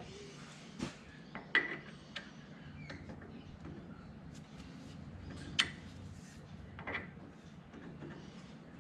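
Scattered metallic clicks and knocks of small metal tools and parts being handled, the loudest about five and a half seconds in, over a steady low hum.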